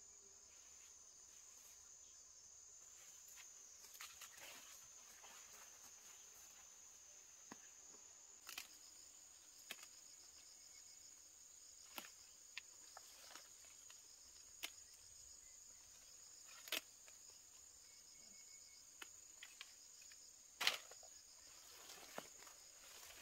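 Faint, steady, high-pitched drone of insects, with scattered sharp snaps and rustles of leafy plants being picked by hand; the loudest snap comes near the end.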